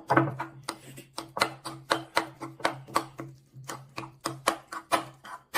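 A spoon clicking and scraping against a bowl about four times a second, mixing rice with crab meat and leftover soy-sauce marinade.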